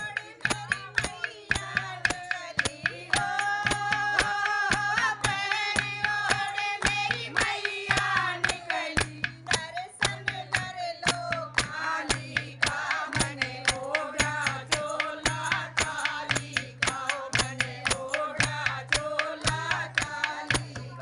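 Women's voices singing a Hindi devotional song (bhajan), kept in time by steady hand-clapping at about three claps a second.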